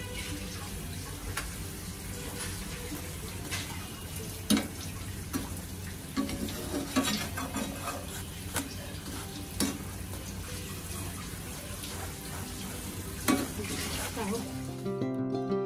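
A perforated metal spatula knocking and scraping against a frying pan as a roti is pressed and turned, about half a dozen sharp taps over a steady hiss. Acoustic guitar music comes in near the end.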